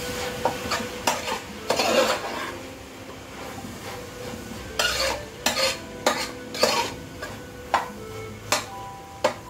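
Wooden spatula stirring and scraping food in a large aluminium pot, clattering irregularly against the metal. It ends with a few single sharp knocks on the pot.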